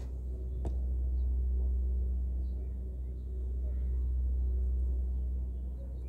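A steady low rumble with a faint hum, swelling and easing slowly, with a few faint high chirps of distant small birds and one faint click about half a second in.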